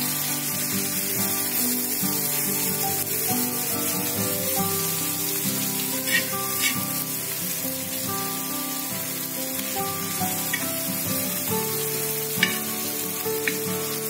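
Tomato-onion masala with butter sizzling in an iron tava, stirred with a steel spatula that scrapes and clicks against the pan a few times in the second half, over background music.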